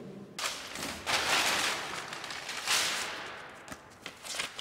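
Paper rustling as papers and hanging file folders in a metal filing-cabinet drawer are leafed through, coming in a few swells, with small ticks near the end.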